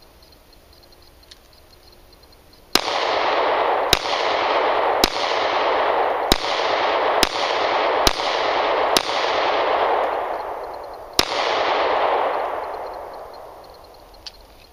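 Eight pistol shots: seven at about one a second, then one more after a pause of about two seconds. Each shot is followed by a long echo that carries into the next, and the echo fades out over a few seconds after the last.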